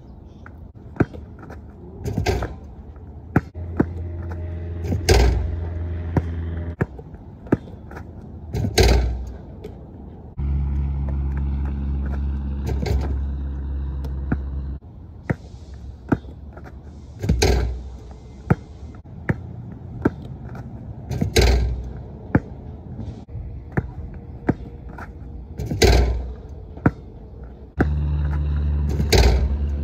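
A basketball bouncing on a plastic tile court and slamming against the rim and backboard on repeated dunk attempts, a loud impact about every four seconds with smaller bounces between. A low droning hum with a few steady tones comes and goes three times.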